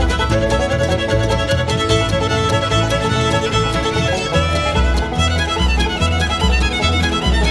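Fiddle-led bluegrass instrumental music with a steady beat and guitar backing.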